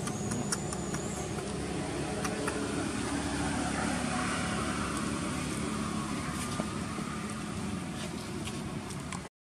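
Steady low hum of a motor running in the background, with a few faint ticks. It cuts off suddenly near the end.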